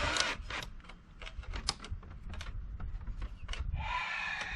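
A putty knife scraping flaking paint off the shed's wood in quick, irregular short strokes, a rapid run of clicks and scrapes. Near the end a held pitched sound comes in.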